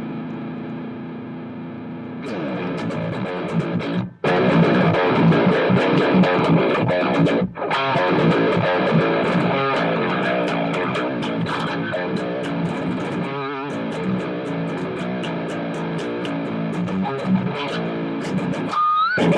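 Guitar music with a distorted, low-quality sound. A held chord opens it, then busy playing follows with two brief drop-outs, and a note slides upward near the end.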